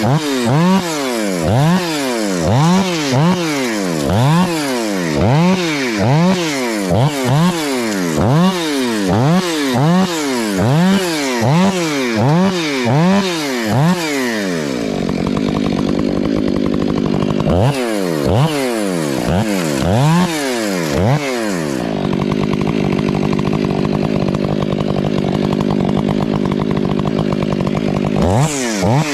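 Two-stroke chainsaw revved up and down over and over, about one and a half times a second. About halfway it holds a steady speed for a couple of seconds, then revs in bursts again, runs steadily for several seconds, and starts revving again near the end.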